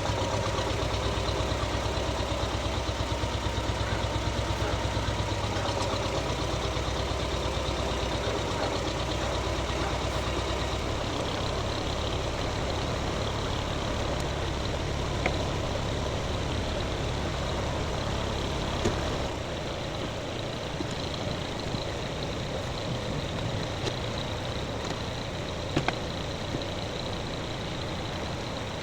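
Tractor engine idling steadily, with its low hum shifting about a third of the way through and a few short sharp knocks.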